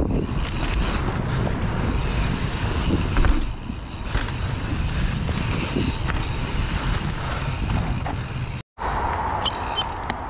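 Wind rushing over the camera microphone and knobby mountain-bike tyres rolling on packed dirt as the bike rides over jumps, with scattered knocks and rattles from bumps. The sound cuts out for a moment near the end.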